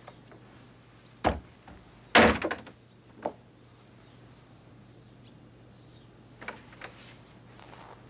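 A wooden door knocking and rattling: a sharp knock about a second in, the loudest clatter of several quick knocks a moment later, another knock, then a few fainter knocks and scrapes near the end.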